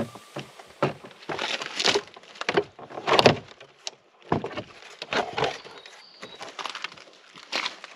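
Irregular clattering, knocking and scraping of plastic interior door trim being pried loose and handled on a Volvo V70, with the loudest knock about three seconds in.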